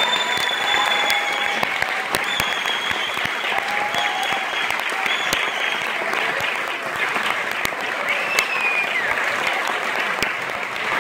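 Audience applauding steadily at the end of a tango performance, a dense clapping with a few held calls over it in the first half.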